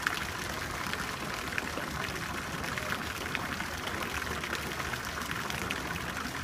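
Steady splashing of fountain water, with a few faint clicks as fingers pick at the plastic wrap of a phone box.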